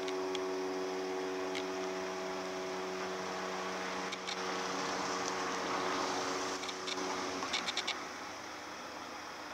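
Cruise ship Thomson Majesty's horn sounding one long, steady blast of about seven to eight seconds, fading out near the end: a farewell salute.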